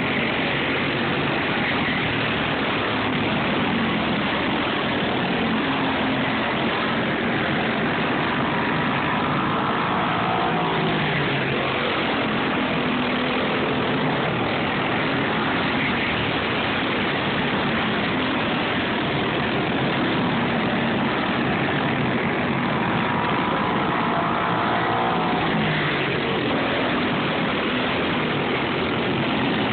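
Dirt-racing go-kart engines buzzing as the karts run laps, their pitch rising and falling as they pass, most clearly twice, over a constant noisy rush.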